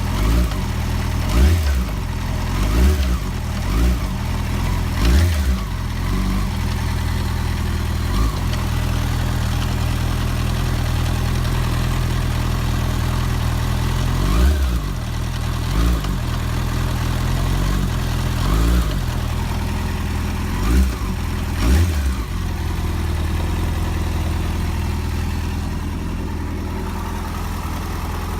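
Yamaha FZ6S 600 cc inline-four engine idling, with about ten quick, sharp throttle blips that rev it up and let it fall straight back, then a steady idle for the last several seconds. The blips are meant to bring out a knock in the gearbox near the front sprocket, which the owner puts down to the clutch basket.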